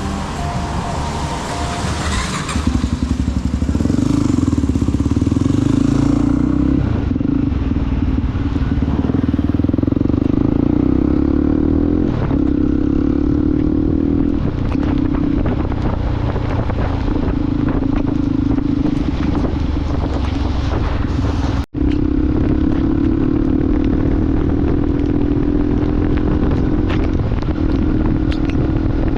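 Motorcycle engine running steadily while riding, its drone drifting slowly up and down in pitch, over wind and road noise. The sound cuts out for an instant about two-thirds of the way through.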